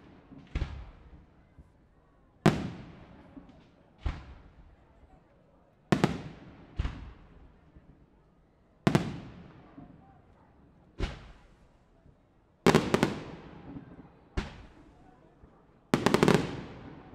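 Aerial firework shells bursting overhead, about ten sharp bangs in all, each one fading out in a long echo. The bangs come singly every second or two, then twice in quick clusters of several near the end.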